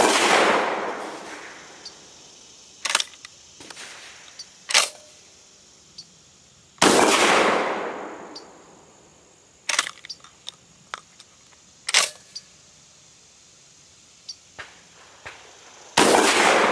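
Three shots from a Titan TTF-12 semi-automatic 12-gauge shotgun, about seven and nine seconds apart, each followed by a long echoing decay. Between the shots come sharp metallic clacks of the action being worked by hand: the light Fiocchi Home Defense loads are not cycling the semi-auto action.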